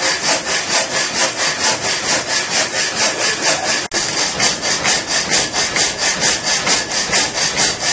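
Water-powered up-and-down sash saw cutting through a log, its blade rasping at a fast, even rhythm of strokes. It cuts only on the downstroke, while the carriage feeds the log forward a little at a time. There is a very brief break about four seconds in.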